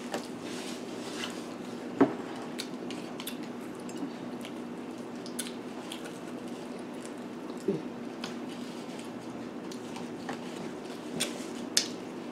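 Several people chewing pizza and garlic bread, with wet mouth sounds and scattered light clicks and taps. The loudest tap comes about two seconds in. A steady low hum runs underneath.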